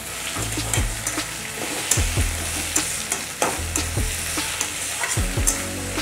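A metal spatula stirs and scrapes boiled radish and potato mash around a steel kadai, with sharp scrapes and knocks against the pan every second or so. Underneath runs a steady sizzle of frying.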